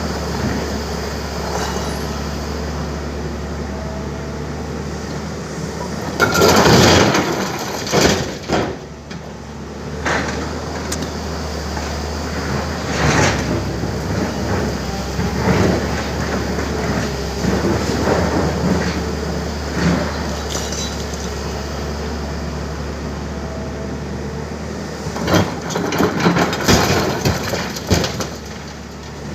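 Tata Hitachi excavator's diesel engine running steadily under load, with loud crashes and rumbles as boulders drop into a truck's steel dump body: a big dump a few seconds in, smaller knocks through the middle and another heavy dump near the end.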